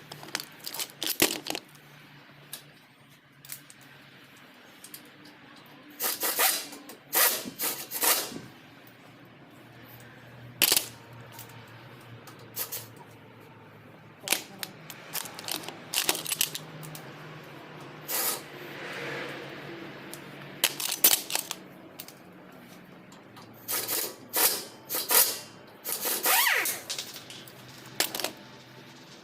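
Metal tools and car parts clinking and clanking in irregular, sharp knocks, with a faint low hum underneath.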